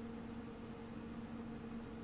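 Faint, steady hum with a constant low tone: a truck camper's propane furnace blower running.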